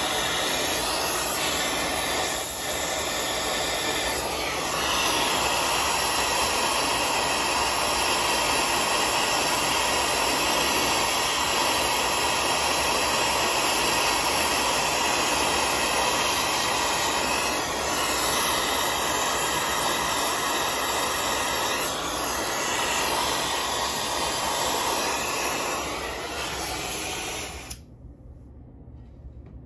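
Brazing torch flame running on a copper joint of a replacement refrigeration solenoid valve: a steady rushing hiss that grows a little fuller about four seconds in and cuts off sharply near the end as the torch is shut off.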